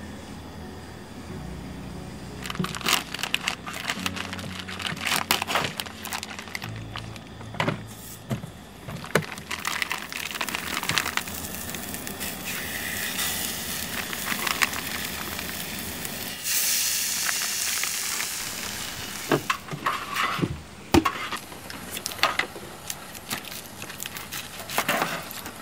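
Camp-stove cooking: clinks and knocks of pots, pans and utensils, crinkling plastic packaging, and sausages sizzling in a cast iron skillet, with a longer stretch of hissing about two-thirds of the way through. Soft music plays underneath.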